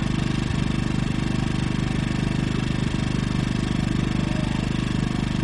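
Generac iQ2000 inverter generator's small single-cylinder four-stroke engine running steadily with no load in economy mode, just switched down from standard and settling at its low economy speed.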